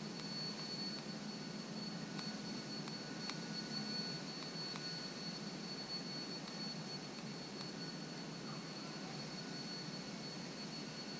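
Steady outdoor background hiss with a thin, steady high-pitched tone and a few faint, scattered clicks.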